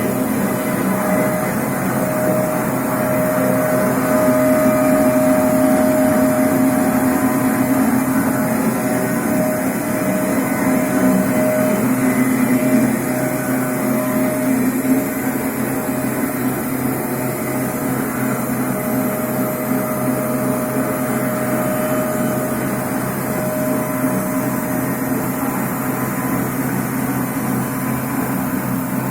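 A band sawmill running: a steady mechanical hum with a constant whine over it, a little louder during the first half.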